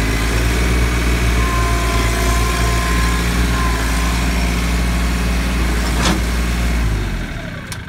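Mahindra 1526 compact tractor's three-cylinder diesel engine running steadily at raised throttle while the hydrostatic drive moves it in reverse, then dropping back toward idle near the end. A single sharp clack about six seconds in.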